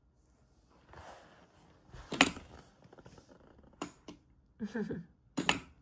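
A baby's brief grunting and babbling sounds mixed with a few sharp knocks, the loudest knock about two seconds in.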